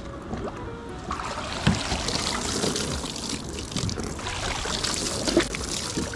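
Water splashing and trickling as seawater is poured over a kayak to wash it down, with two sharp knocks on the hull, one about two seconds in and one near the end.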